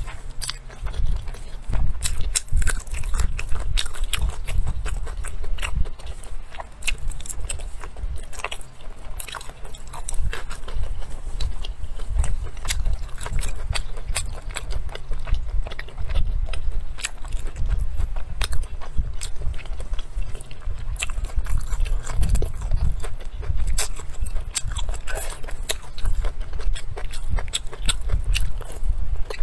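A person chewing and biting pork rinds and pig ears close to the microphone: continual wet chewing with many sharp crunchy clicks, likely from the cartilage.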